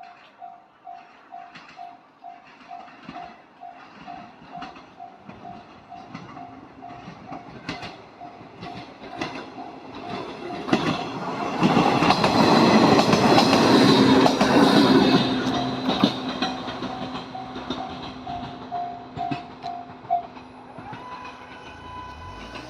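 Japanese level-crossing warning bell ringing at about two strokes a second while a train passes over the crossing. The train's wheels click over the rail joints, and the train is loudest about 11 to 16 seconds in before fading. The bell stops about 20 seconds in.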